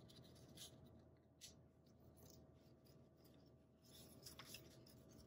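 Faint rustling of paper strips being handled, with soft scrapes as they are slid apart and laid down on a cutting mat.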